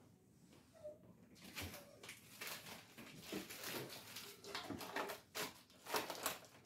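Faint, irregular clicks and rustles of food containers and packaging being handled on the shelves of an open refrigerator door.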